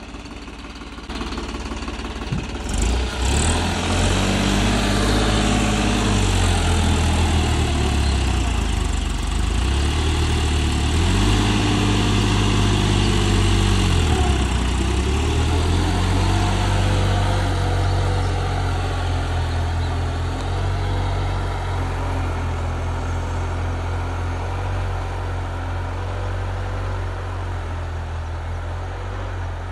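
New Holland 3630 Special Edition tractor's three-cylinder diesel engine revving up as it pulls off with a tine cultivator, its note dipping and climbing under the load over the first fifteen seconds. It then runs steadily and slowly fades as the tractor moves away.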